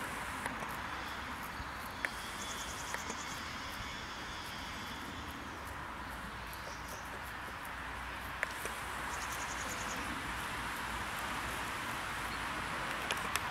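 Quiet outdoor ambience: a steady hiss with a few soft clicks, and a brief, high, rapid trill twice, about two and a half seconds in and again about nine seconds in.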